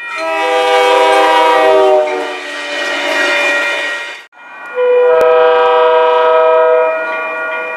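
Train air horns sounding several notes together: a long blast of about two seconds that eases into a softer one, an abrupt cut, then another long horn blast from a second train about half a second later.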